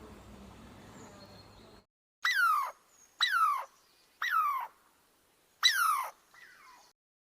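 An animal calling: four loud, short, high cries about a second apart, each falling steeply in pitch, then a fainter fifth cry, after a faint fading sound at the start.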